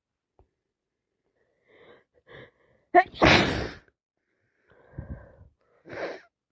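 A woman sneezing: two short catching breaths build up, then one loud sneeze about three seconds in, followed by a few shorter breathy sounds.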